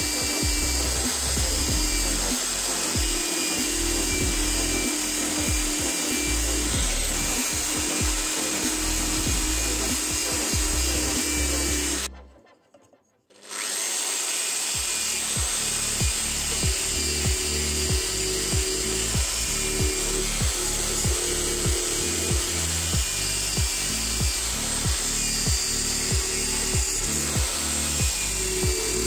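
Electric drill running with a wire wheel brush attachment, the wire scrubbing rust off a steel knife blade and tang; a steady motor whine under the scrubbing. The sound cuts out for a moment about twelve seconds in, then resumes.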